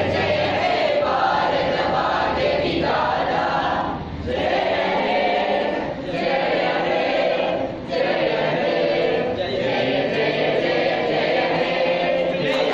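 A large group of students singing together in unison, phrase after phrase, with short breaks about four, six and eight seconds in.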